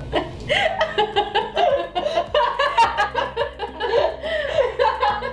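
Two women laughing together, in quick repeated pulses of giggling and chuckling.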